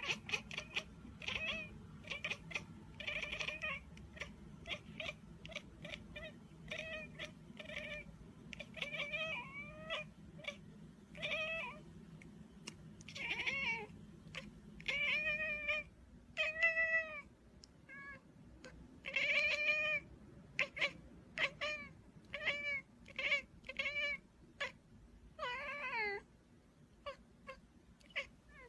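Domestic cat meowing again and again: a string of short and longer meows, some rising and falling in pitch.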